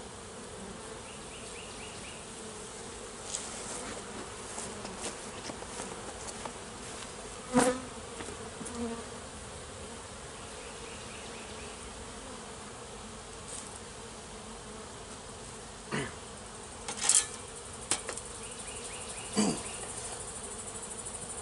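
Honey bees buzzing steadily around an open hive. A few short, sharp knocks stand out above the buzz, the loudest about a third of the way through and several more near the end.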